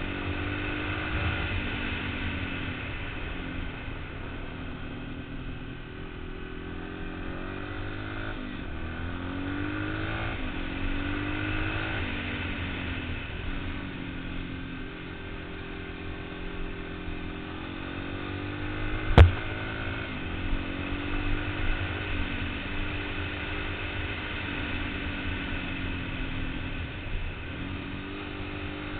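Yamaha TT-R225 dirt bike's single-cylinder four-stroke engine running under way, its revs rising and falling again and again. A single sharp knock about two-thirds of the way through stands out above the engine.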